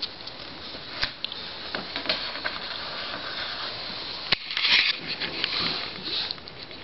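Close handling noise: scattered light clicks and rustling, with a sharp click a little over four seconds in and a short hissy rustle right after it.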